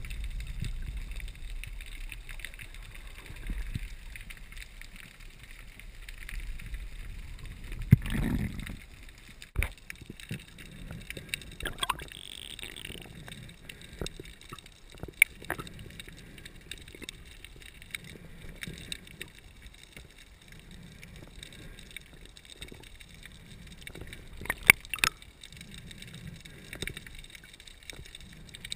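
Muffled underwater sound heard through a submerged camera's housing: a low rumble of moving water with scattered sharp clicks and knocks, a few of them much louder than the rest.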